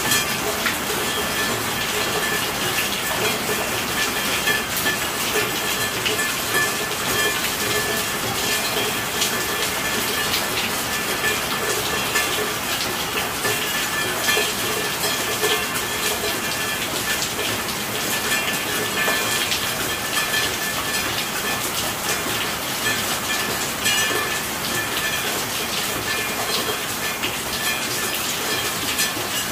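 Steady heavy rain: a dense, even hiss of falling water with countless small drop hits.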